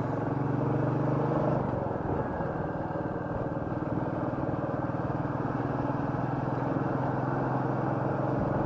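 Royal Enfield Meteor 350's single-cylinder engine idling steadily with the bike stopped, a low, even engine note with no revving.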